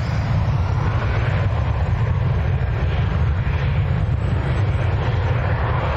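British Airways Airbus A320-family jet on its take-off roll, its jet engines at take-off power making a loud, steady deep rumble as it accelerates down the runway.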